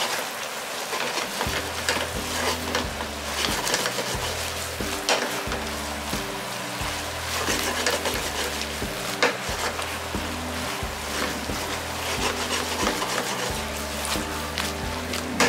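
Pork and vegetable stir-fry sizzling in a frying pan as it is tossed and stirred with long cooking chopsticks, while its starch-and-water sauce thickens. Frequent clicks of the chopsticks and food against the pan sound over the steady sizzle, with background music underneath.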